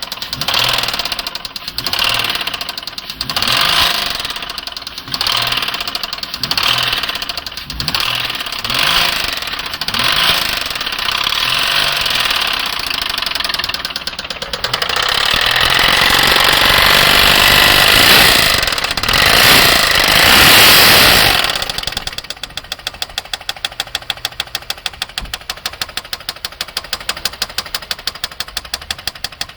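2009 Nissan Maxima's 3.5-litre V6 engine revved in short blips, then held at high revs for several seconds, then dropping back to idle with a regular knock about three times a second. The owner takes the noise for a bad motor.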